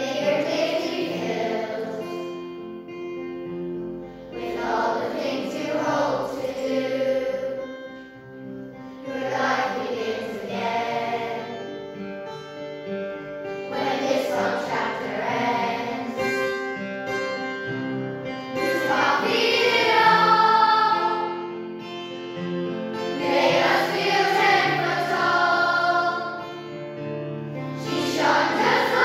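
Children's choir singing a song in phrases of a few seconds each, with short breaks between lines, over a steady instrumental accompaniment.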